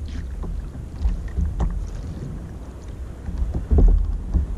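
Wind rumbling on the microphone and water moving around a fishing kayak at sea, with a few light clicks and knocks; the rumble grows louder about four seconds in.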